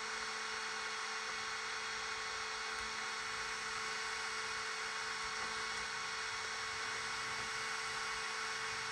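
Steady electrical hum and whine that holds one pitch throughout.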